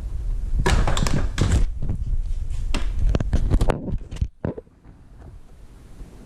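Quick run of knocks, thuds and clatter from gear being handled, over a low rumble. It breaks off about four seconds in, leaving a few faint taps.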